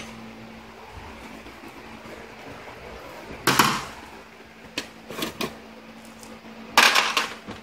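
Metal pump parts clanking and knocking as they are handled and set in place: two louder clatters about a third of the way in and near the end, with a few short knocks between, over a steady low hum.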